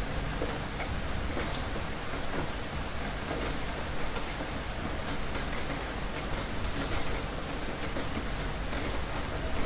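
Heavy rain falling steadily, a dense even hiss dotted with many small drop ticks, with a low steady rumble underneath.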